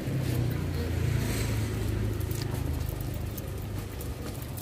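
A road vehicle passing: a low engine rumble with a hiss that swells about a second in and then fades.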